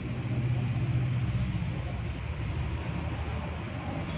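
A motor vehicle's engine running, a steady low rumble.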